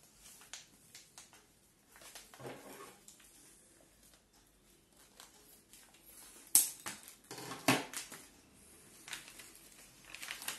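Packaging being handled and crinkled, with scattered clicks and rustles, and a couple of sharp scissor snips cutting into the packet a little past halfway.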